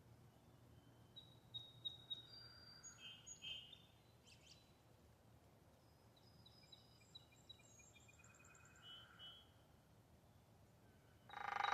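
Faint wild birdsong: scattered short high chirps and quick trills, with a couple of sharp clicks about four seconds in. Just before the end, a much louder pitched animal call starts.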